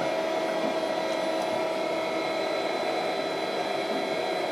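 Graziano GT 300 CNC lathe running, a steady mechanical hum with several held whining tones, as its tool turret slide traverses slowly at the reduced speed allowed with the door open.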